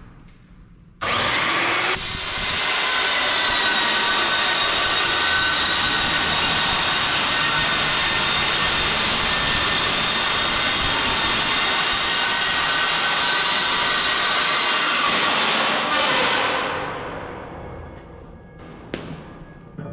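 Handheld electric grinder working on the steel deck plate. It starts suddenly about a second in, runs steadily with a high whine for about fifteen seconds, then is released and winds down over a couple of seconds.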